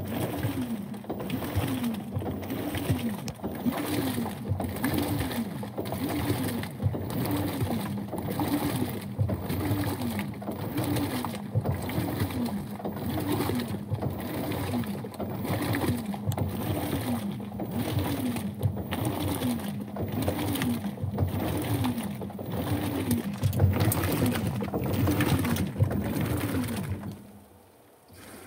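Top-loading HE washing machine's motor driving the agitator in short strokes, about one a second, each a whirring whine that falls in pitch, with clunks of the drive. It is the dry agitation at the start of the cycle, before the tub fills. It stops about 27 seconds in.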